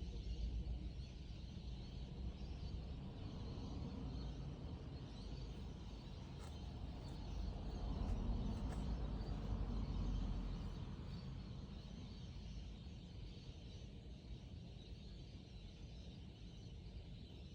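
A large flock of parrots calling together: a dense chorus of overlapping calls that grows louder around the middle, over a steady low rumble.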